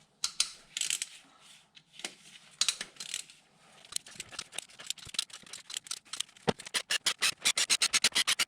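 A socket ratchet clicking as the camshaft bearing cap bolts are undone, mixed with small metallic clinks of tools and parts. The clicks come in quick, evenly spaced runs that speed up to several a second in the last two seconds.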